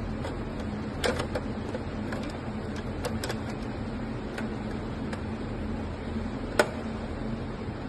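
Scattered clicks and light knocks of tower fan parts being handled during cleaning, over a steady low hum, with the sharpest click about six and a half seconds in.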